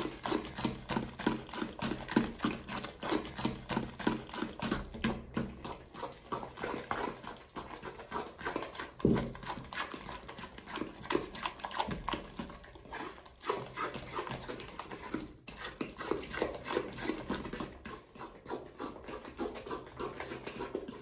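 Thick banana bread batter with crushed pineapple and banana being stirred by hand in a stainless steel mixing bowl: quick, uneven wet strokes, several a second, with the utensil catching against the bowl.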